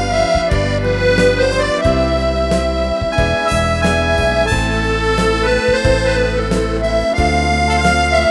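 Accordion playing a slow melody in long held notes over sustained bass chords that change about once a second.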